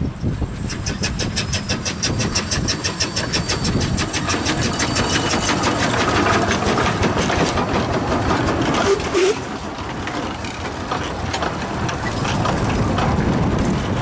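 W. G. Bagnell 0-4-0 saddle-tank narrow-gauge steam locomotive passing close at speed, its exhaust beats coming fast and even, about ten a second. Then its train of coaches rumbles and clatters by on the track, with a short squeal from the wheels about nine seconds in.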